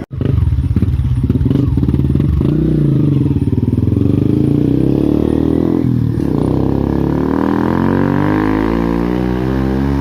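Yamaha Y15ZR's single-cylinder four-stroke engine revving loudly through an Espada standard-cut aftermarket exhaust. The revs rise and fall, drop about six seconds in, then climb steadily over the last few seconds.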